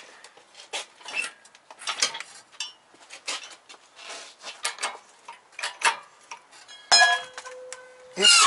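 Irregular metal clinks and knocks: hoist chains and the hanging engine's metal parts knocking together as the engine is shifted off its mounts. About seven seconds in comes a loud metallic clang that rings briefly, and another loud clang follows near the end.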